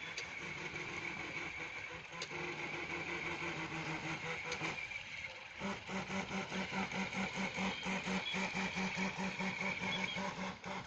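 A small motor running with a steady hum. About halfway through it changes to a pulsing hum of about four beats a second.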